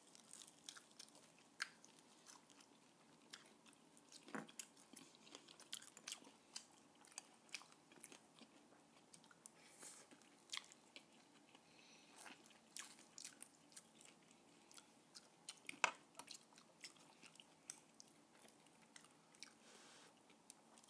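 Chewing and biting into crispy fried salted egg chicken wings: many short crunches and clicks at irregular intervals, with one sharper click about 16 seconds in.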